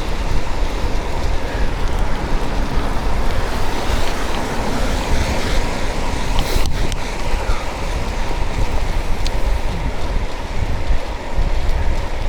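Steady rushing wind and road noise of a moving vehicle, heaviest in the low end, with one sharp click about halfway through.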